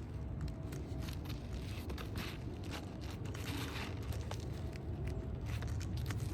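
Asphalt roof shingles being worked loose by hand: scattered crackling, scraping and clicking as a shingle held by a hidden nail is pulled at, over a steady low rumble.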